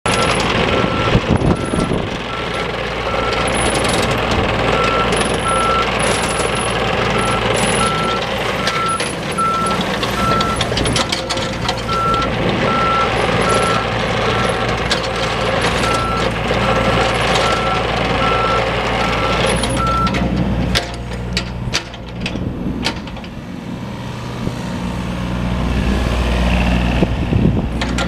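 John Deere 27D compact excavator running on its diesel engine, with its travel alarm beeping at an even pace while it tracks. The beeping stops about two thirds of the way through, and the engine gets louder near the end.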